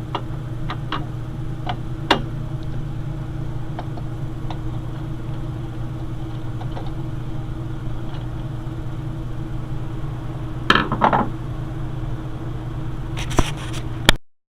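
Light clicks and knocks of desktop computer parts being handled, over a steady low hum. A short rattling scrape comes about eleven seconds in, and another near the end.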